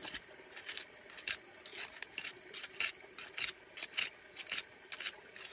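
Pointed steel crevice tool scraping and prying packed dirt and gravel out of a boil hole in bedrock: quick repeated scrapes of metal on rock, about two or three a second.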